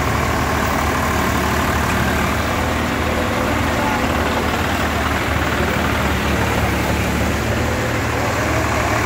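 Diesel tractor engines running steadily at an even, unchanging speed: a constant low hum with no revving.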